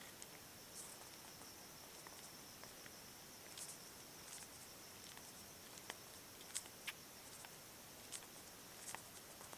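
Near silence: a faint steady hiss with scattered soft clicks and ticks.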